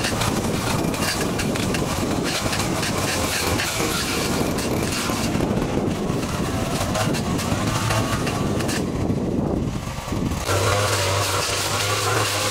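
Small petrol engine of lawn-care equipment running steadily, with a brief dip about ten seconds in before it carries on with a steadier low hum.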